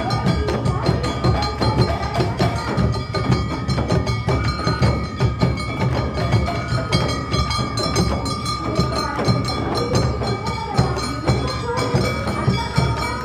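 Awa Odori festival music: dense, rapid percussion of clanging hand gongs and drums with a steady high tone held throughout.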